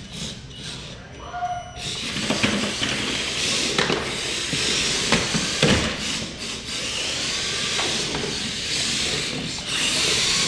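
Two Air Hogs Hyper Tracks remote-control tracked vehicles whirring across a hard wood floor, their small electric motors running, with a few short knocks as they bump and tumble.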